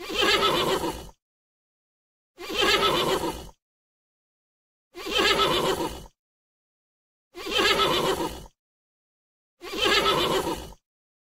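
Horse neighing: five whinnies, each about a second long, evenly spaced with silence between them.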